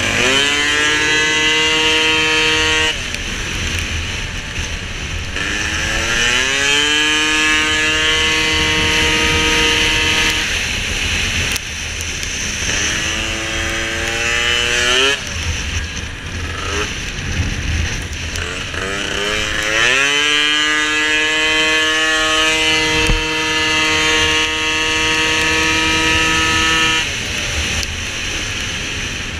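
Tuned Piaggio SKR racing scooter engine at full throttle. Each time it climbs in pitch it holds one steady high note, then falls away as the throttle comes off: about 3 seconds in, about 10 seconds in, briefly about 15 seconds in, and again near the end. A low rumble runs underneath throughout.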